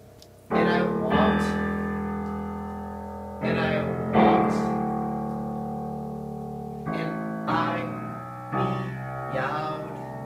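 Guitar chords strummed and left to ring, struck eight times in loose pairs, each chord fading slowly before the next.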